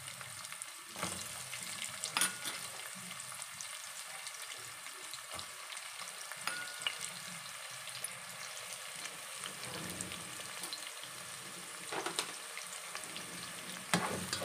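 Chopped red onions and curry leaves sizzling steadily in hot oil in a pot, frying until they brown. A spatula stirs and scrapes the pot with a few sharp clicks, mostly near the end.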